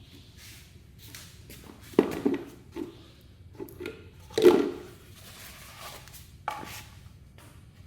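Irregular knocks and clunks of objects being handled and set down, with two louder thuds about two seconds and four and a half seconds in and a sharper tap near the end.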